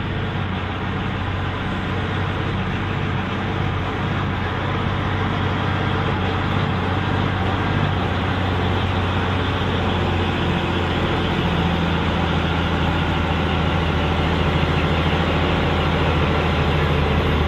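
New Holland T9.450 tractor's diesel engine pulling a weight sled under steady heavy load. It grows gradually louder as the tractor comes closer.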